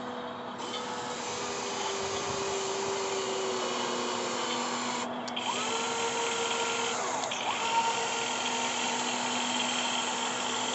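Radio-controlled excavator's motors whining steadily as it digs, with the pitch rising and falling a few times as the controls are worked.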